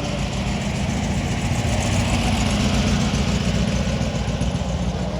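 A car engine running at idle close by, a steady pulsing rumble that grows slightly louder about two seconds in.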